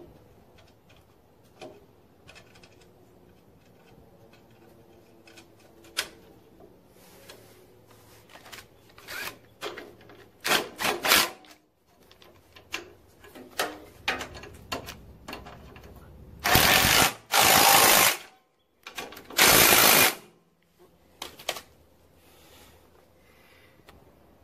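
Small metal clicks of nuts and lock washers being handled and threaded onto carriage bolts, then a cordless impact wrench running in short bursts to tighten the nuts. The longest and loudest bursts, three of about a second each, come past the middle.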